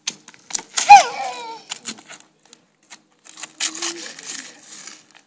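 A toddler's short, high squeal that falls in pitch about a second in, among a few light clicks. From a little past three seconds, a plastic toy shovel and small hands scrape and scoop in dry sand.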